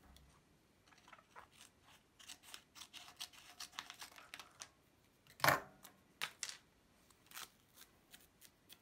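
Scissors snipping through the paper backing of a self-adhesive case badge, with the backing paper rustling and crinkling as it is peeled away. A quick run of short rustles and snips for a few seconds, one louder snip about five and a half seconds in, then a few lighter ticks.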